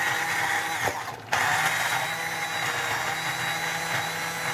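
Electric hand (immersion) blender running in a pot of cooked lentil soup, puréeing it: a steady motor whine that dips briefly about a second in and then runs on.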